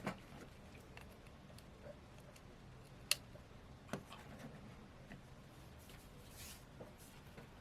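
Quiet room tone with a few small clicks and taps from handling a phone and its charging cable; the sharpest click comes about three seconds in.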